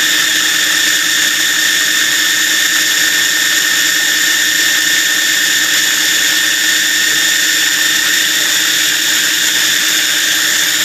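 Food processor motor running steadily, blending garlic sauce with a constant whine.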